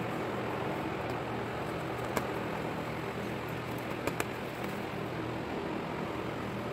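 Steady mechanical hum with an even hiss, broken by a few light clicks about two seconds and four seconds in.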